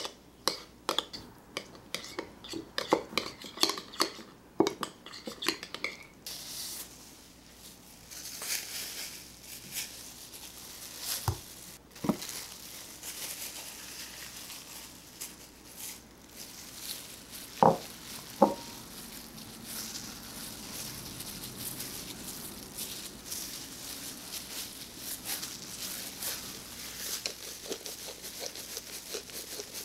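Metal spoon stirring a thick creamy paste with dried rosemary in a glass bowl, with rapid scrapes and clinks against the glass for the first several seconds. Then quieter wet handling sounds, broken by two pairs of sharp knocks, one about a third of the way in and one a little past the middle.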